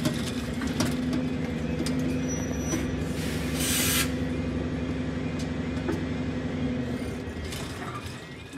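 Level crossing warning alarm warbling as the half-barriers lower across the road, over a steady low hum that stops about seven seconds in. A loud burst of hiss comes about three and a half seconds in.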